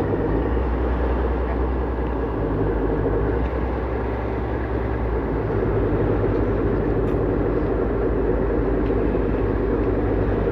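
River express boat's engines running with a steady drone as the boat pulls away from the jetty.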